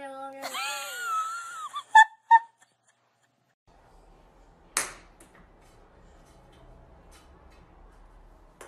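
A hairless cat meowing in a long, drawn-out call that bends in pitch and stops about two seconds in, followed at once by two short ringing dings. After a moment of silence, only faint room noise with a single click.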